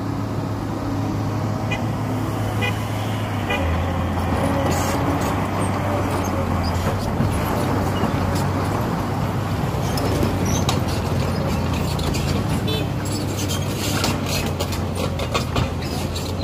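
Komatsu PC210 crawler excavator's six-cylinder diesel engine running steadily as the machine travels off along the asphalt road on its steel tracks, its note deepening a few seconds in, with a string of clanks and clicks from the tracks in the second half. A passing car mixes in about halfway through.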